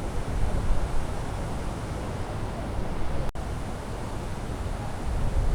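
Wind buffeting the microphone over a steady rushing of river water, heaviest in the low rumble. The sound cuts out for an instant a little over three seconds in.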